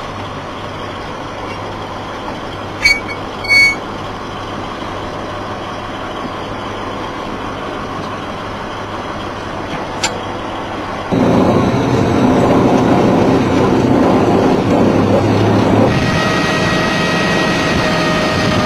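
Military vehicle engine running while under way, a steady low drone with two brief loud sounds about three seconds in. About eleven seconds in the noise jumps louder and rougher, and near the end a steady whine rises over it.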